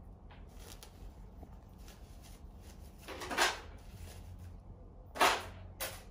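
Disposable diaper crinkling as it is unfolded and handled, in short bursts: one about three seconds in, the loudest about five seconds in, and a brief one just after.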